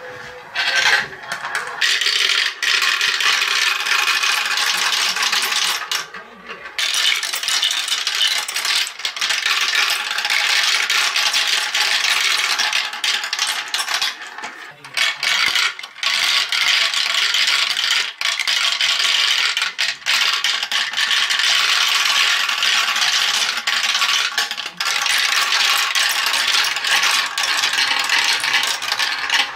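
Marbles rolling and clattering through a Galt plastic marble run's tracks and funnels, a dense, continuous rattle of marbles on hard plastic. It briefly thins out about six seconds in and again around fifteen seconds.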